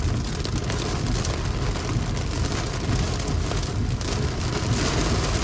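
Heavy rain falling on a car, heard from inside the cabin as a steady hiss, over a constant low rumble from the moving car.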